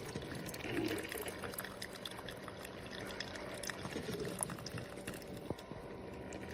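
Hamilton Beach FlexBrew single-serve coffee maker brewing: hot coffee pouring into the cup with small drips and pops over a faint steady hum.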